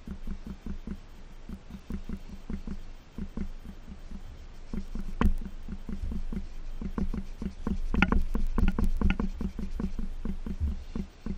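A cloth in a gloved hand scrubbing a motorbike's curved exhaust header pipe in quick back-and-forth strokes, about four or five a second. There is a sharper knock about five seconds in and a few crisper clicks later on.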